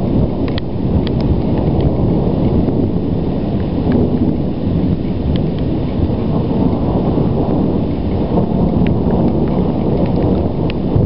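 Low rumbling thunder from a thunderstorm, a steady continuous rumble with no single sharp clap, with scattered light ticks above it.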